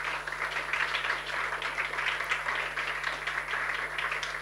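Audience applauding: many people clapping together at an even level.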